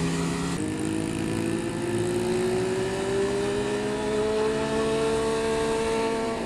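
Motorcycle engine under way, pulling in one gear: its pitch steps up about half a second in, then climbs slowly and steadily, dropping again right at the end.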